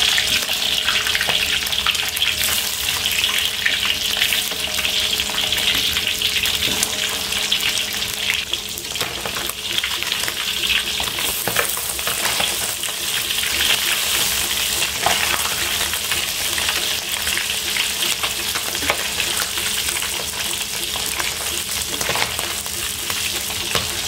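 Salted fish frying in hot oil in a wok: a steady sizzle, with a few short scrapes and clinks of a metal spatula turning the pieces.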